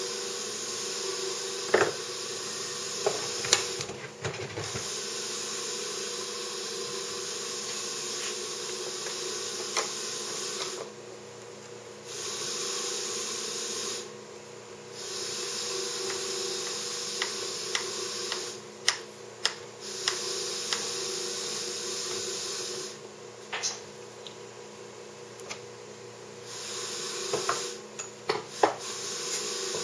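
Scattered clicks and knocks of a hand tool and wooden parts being handled on a workbench, over a steady hiss and hum that cuts out abruptly several times.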